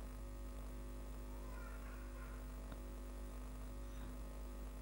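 Low steady electrical mains hum with a faint even hiss under it; no distinct event stands out.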